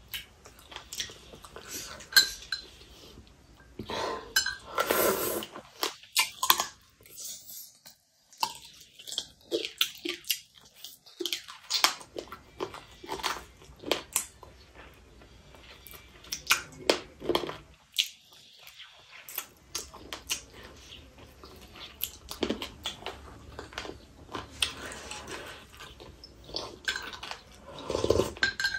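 Close-up eating sounds: a metal spoon clinking and scraping irregularly in a ceramic soup bowl, with chewing in between.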